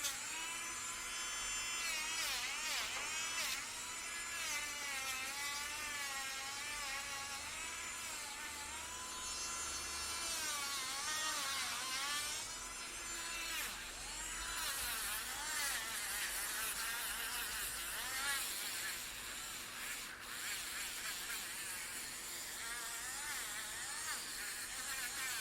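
Electric nail drill running with a high buzzing whine whose pitch keeps wavering up and down, turning rougher about halfway through.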